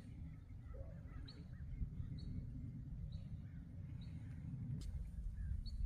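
A bird repeating a short, high chirp about once a second over a steady low rumble.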